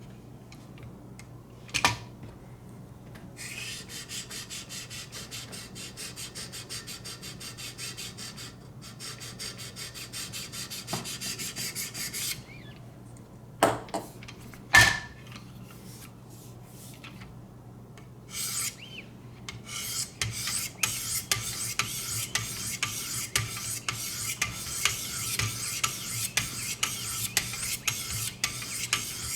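Knife blade being sharpened on 600-grit sharpening stones of a guided sharpening system: quick, even rubbing strokes of stone across steel in two long runs. A few sharp knocks in between.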